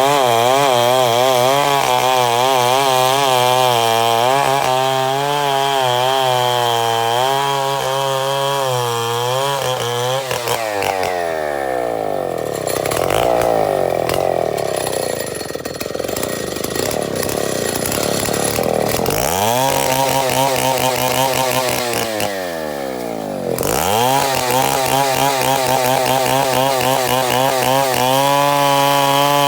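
Chainsaw running hard, cutting embre wood into 2x6 boards. About ten seconds in the engine note drops and labours for several seconds. It revs back up, dips once more briefly, and returns to high speed.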